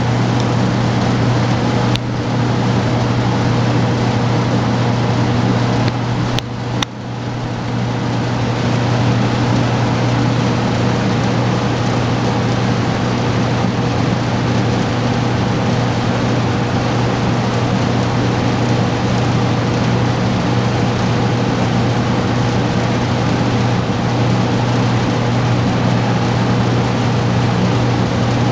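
Large belt-driven wall-mounted exhaust fan running steadily: a loud, even low hum with a rush of air over it.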